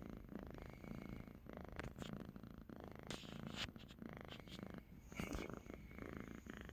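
Dilute calico cat purring steadily while being stroked, with a couple of brief rustling noises about three and five seconds in.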